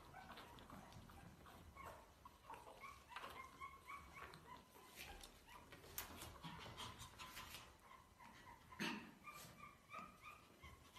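Faint, high-pitched squeaks and whimpers from young puppies crowding onto their mother to nurse: many short cries, one after another.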